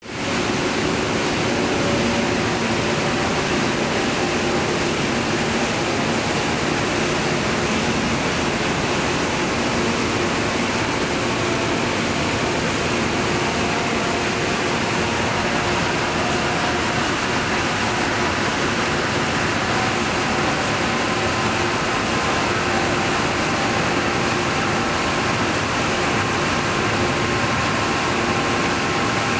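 Steady, loud machinery noise of a running paper machine: an even hiss with a few faint steady hum tones, unchanging throughout.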